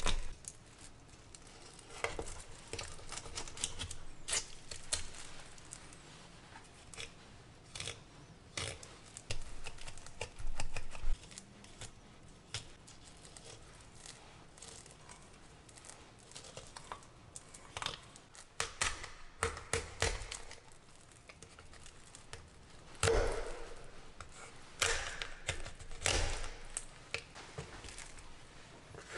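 Knife filleting a tautog on a bamboo cutting board: irregular crackling and ticking as the blade cuts along the backbone and through the rib bones, with a few louder cutting strokes near the end.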